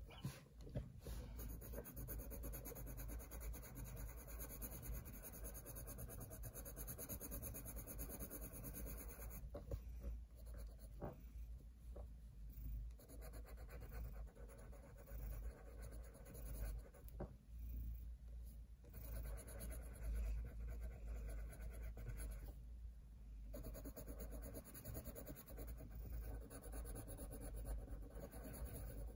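Coloured pencil scratching on paper in short back-and-forth strokes as a flower is shaded in, with a few brief pauses between bursts of colouring.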